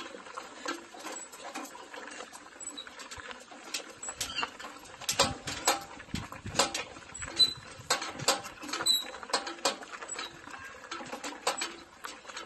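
Pedal surrey bike rolling over a gravel road, giving a string of irregular clicks and crunches.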